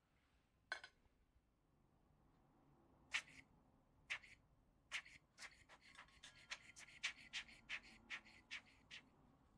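Faint, short puffs of air from a rubber squeeze-bulb blower blowing ash off a camp stove's burner plate. The first puffs come a second or so apart; from about halfway in they run at about three a second.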